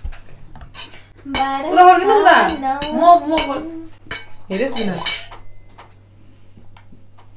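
Metal forks clinking and tapping against ceramic plates in scattered sharp ticks. A person's voice runs loud over them from about a second in to four seconds, with a short call about a second later.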